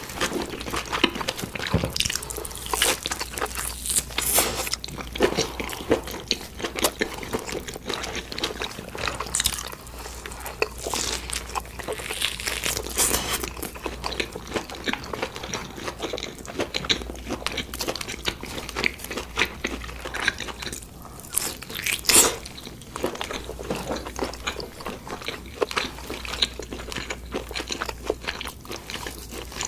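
Close-miked eating of crunchy food: irregular crisp bites and crunching chews, with one especially loud crunch about two-thirds of the way through.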